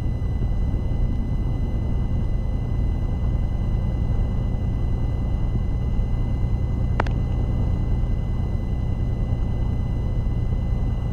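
Light aircraft's engine running steadily, heard as a low drone through the cockpit headset audio, with a steady high-pitched whine over it. One sharp click about seven seconds in.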